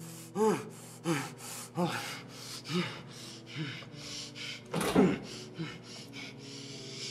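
A person gasping and whimpering in a string of short, breathy gasps, about one or two a second, each falling in pitch, with the loudest gasp about five seconds in.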